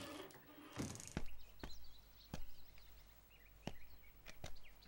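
Footsteps, a series of separate steps, with small birds chirping in the background.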